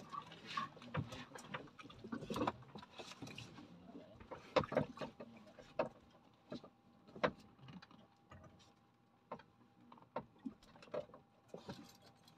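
Irregular knocks and taps on board a small fishing boat, some sharper than others, with a faint steady tone from about four seconds in.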